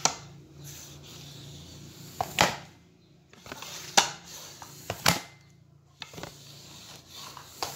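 Aeroic FP08 alloy floor pump worked by hand: a sharp knock with each stroke of the handle, three loud ones a second or so apart with fainter clicks between, as air is pushed in.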